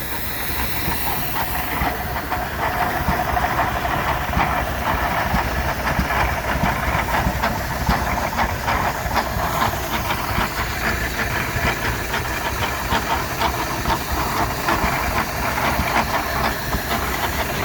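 Running steam engine hissing steadily, with a fast, continuous clatter of machinery.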